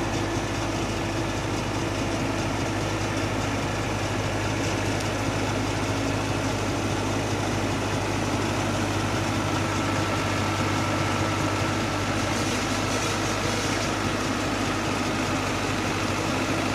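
Diesel engine of a Komatsu PC71 excavator running steadily at low revs, with a faint steady whine joining about ten seconds in.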